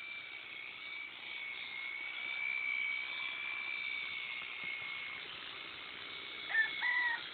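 Electric sheep-shearing handpiece running steadily through a fleece with a high, even whine. A brief pitched call cuts in near the end.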